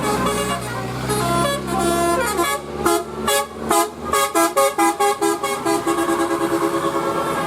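Bus 'telolet' horn, a set of electrically switched air horns, playing a quick tune of stepped notes. From about four seconds in the notes come as short, fast repeated toots. A low bus engine hum runs underneath and fades out about four seconds in.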